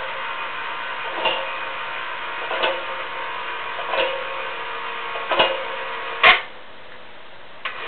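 Ladder hoist running as it raises a 100 lb load (two 50 lb weights) up the ladder: a steady mechanical whir with a regular click about every second and a half. About six seconds in a sharper clunk comes and the running stops, starting again near the end.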